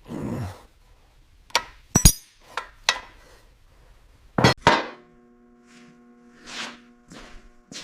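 Metal tools knocking and clinking against metal parts in a string of sharp separate strikes, the loudest two close together about four and a half seconds in. After them a steady metallic ringing tone holds on.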